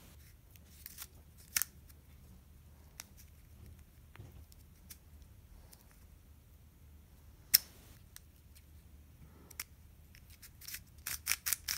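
Cheap 30mm mini 3x3x3 picture cube being turned by hand: scattered sharp plastic clicks as its layers turn, one louder snap about seven and a half seconds in, and a quick run of clicks near the end.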